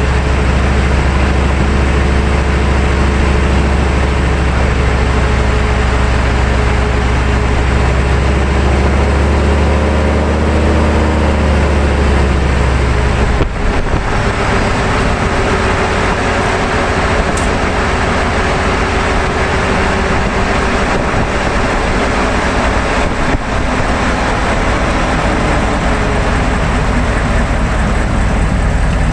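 Road noise under a moving 1999 GMC 3500 pickup with a 6.5 L turbo diesel: steady tyre and wind rush with a deep drivetrain and engine hum. The deep hum drops away sharply about halfway through, leaving the rush and a lighter, steadier hum.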